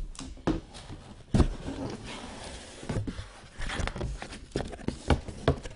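A cardboard hobby box and its packaging being opened and handled: irregular taps and knocks with rustling of cardboard and plastic, the loudest knocks about a second and a half in and near the end.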